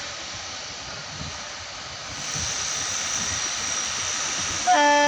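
Passenger train coaches rolling past on the rails, a steady noise that grows louder about two seconds in. Near the end a train horn sounds suddenly, loud and steady with several tones at once.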